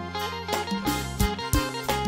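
Instrumental Isan mor lam band music played live, with a plucked-string melody over sustained bass notes and a steady drum beat.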